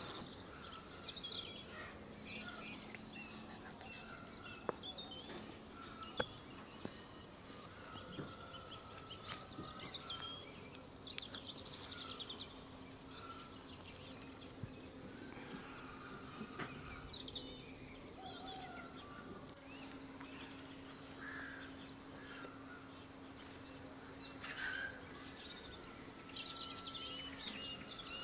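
Small birds chirping and singing on and off, over a faint steady hum, with a couple of light taps.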